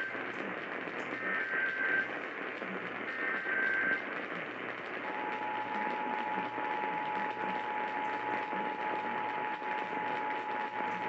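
Emergency Alert System test heard through a hissy radio reception: two short bursts of the SAME digital header tones, each just under a second long, then about five seconds in the steady two-tone EAS attention signal (853 and 960 Hz together) starts and holds.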